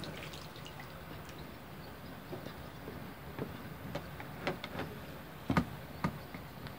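Lake water splashing and dripping around a landing net held in the water, with a few sharper splashes in the second half.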